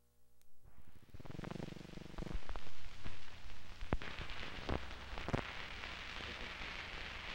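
Old film soundtrack noise: a steady hiss and crackle with a few sharp pops, starting about half a second in. A low hum joins it about four and a half seconds in.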